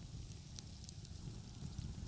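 Wood fire crackling outdoors, with scattered sharp pops and snaps over a low, steady rumble.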